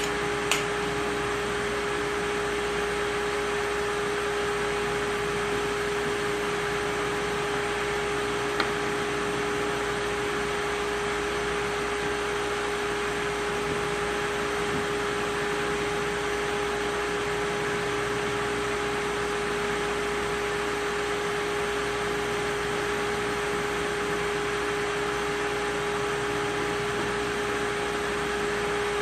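Steady mechanical hum with a constant tone that does not change, and two light clicks, one just after the start and one about nine seconds in.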